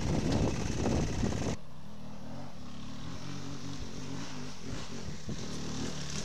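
Enduro motorcycle engine running with wind noise on the helmet microphone while riding, cut off suddenly about a second and a half in. Then a quieter two-stroke enduro bike engine running, its pitch wavering up and down as it climbs a trail.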